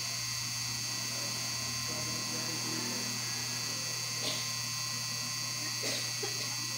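Steady electrical hum with a thin high whine over it, and two faint clicks about four and six seconds in.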